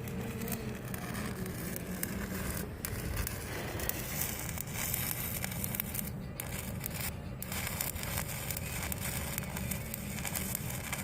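Stick (arc) welding on a 10-inch pipe joint: a continuous crackling, sputtering arc that drops out briefly about three times, over a steady low hum.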